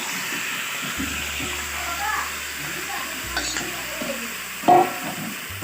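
Marinated chicken frying and sizzling in hot oil with onion and tomato while it is stirred in the pot. A brief louder clatter comes about three-quarters of the way through.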